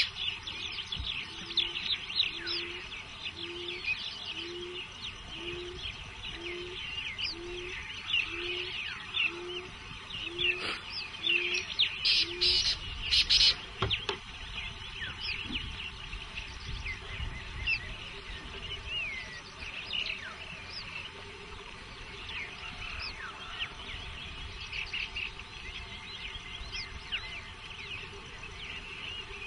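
Many wild birds chirping and calling at once, with a low hooting bird note repeated evenly about once a second for the first ten seconds or so and a few louder sharp sounds around the middle.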